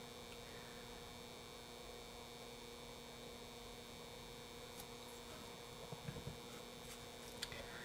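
Faint steady electrical hum over low hiss, with a few faint soft ticks near the end.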